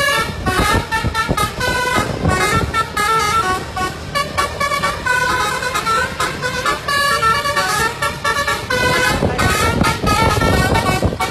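Indonesian bus 'telolet' musical horn driven by a DAV module, playing a quick tune of stepped notes over a low rumble.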